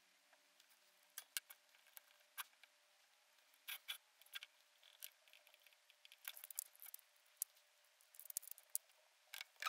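Faint, scattered small clicks and light scrapes of close handwork on a camera body and its covering, a few coming in short clusters.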